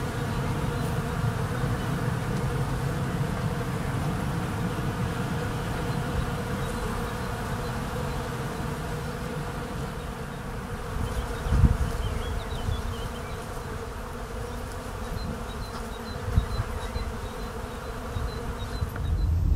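Bees buzzing steadily around a blossoming cherry tree, many bees together making one continuous humming drone. A brief low thump comes a little past halfway.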